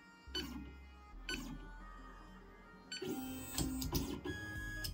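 AlgoLaser DIY Kit MK2 laser engraver jogged from its touchscreen: a few short clicks as the buttons are pressed, then from about three seconds in the stepper motors whine as the laser head moves along its axis.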